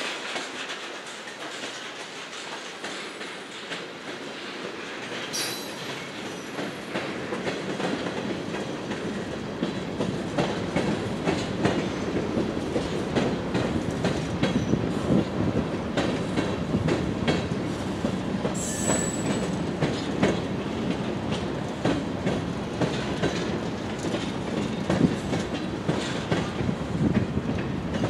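Mixed freight train's tank cars and boxcars rolling past, wheels clicking over rail joints with a steady rumble that grows louder over the first several seconds. A brief high-pitched wheel squeal comes about two-thirds of the way through.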